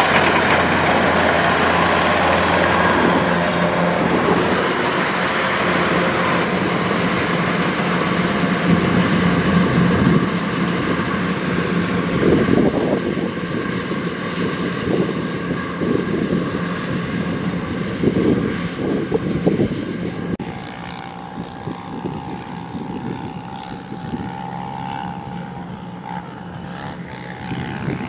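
Kubota DC105X rice combine harvester running under load as it cuts rice: a steady drone of the diesel engine and the cutting and threshing machinery. It grows fainter as the machine moves away, with a clear drop in level about two-thirds of the way through.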